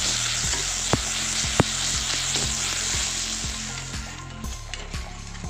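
Chopped tomatoes sizzling in hot oil in a kadhai while a metal spatula stirs and scrapes the pan, clinking about twice a second. The sizzling drops away about four seconds in, leaving the spatula strokes on a thicker masala.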